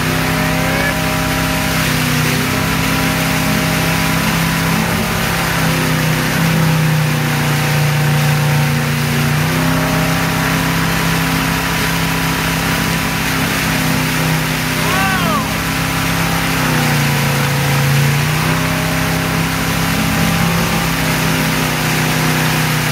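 Towing boat's engine running steadily under load, its pitch dipping briefly about three-quarters of the way through, over the rushing hiss of the wake's churning water.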